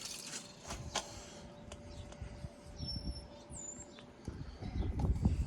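Outdoor ambience: a bird chirps briefly a couple of times about three seconds in. There is a single click about a second in, and a low rumbling noise rises near the end.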